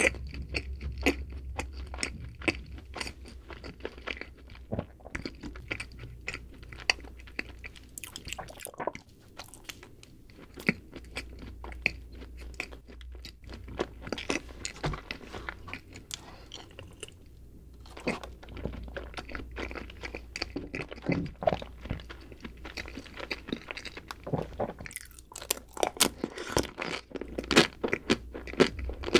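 Close-miked chewing of a chocolate-coated snack cake: a steady run of small crunches and crackles, growing denser and louder near the end.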